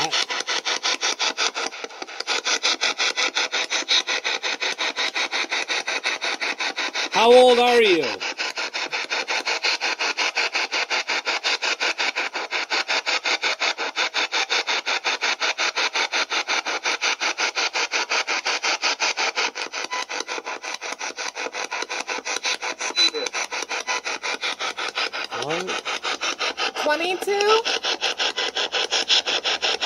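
Handheld spirit box radio sweeping rapidly through stations: a fast, even chop of radio static. Brief fragments of broadcast voice break through about seven seconds in, the loudest moment, and again near the end.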